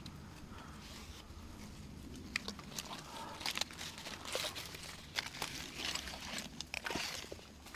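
Irregular crackling and rustling, a run of sharp little crackles that thickens from about two seconds in.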